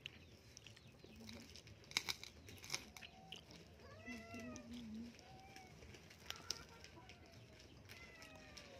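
Faint short animal cries, a few arched calls about halfway through, among a few sharp clicks.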